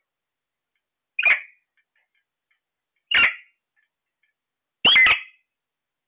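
Caged parakeets calling: three short, loud screeches about two seconds apart, with silence between them.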